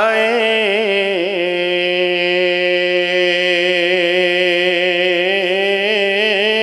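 A man's unaccompanied voice holding one long sung note at the start of a hamd, a devotional chant in praise of God. The pitch wavers in small turns for the first second or so, then holds steady.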